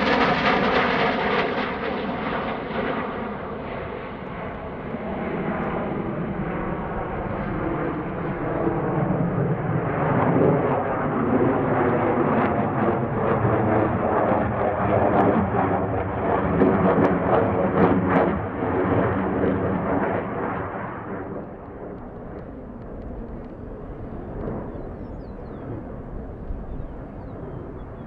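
F-15C Eagle's twin Pratt & Whitney F100 turbofan engines in flight. The jet noise is loud at the start with its pitch falling as the jet passes, swells again to its loudest between about ten and twenty seconds in, then drops away fairly suddenly about twenty-one seconds in to a quieter steady level.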